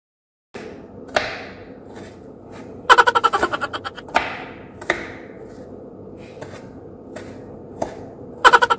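Kitchen knife cutting an onion on a cutting board: sharp knocks every second or so, with a couple of quick runs of rapid chops.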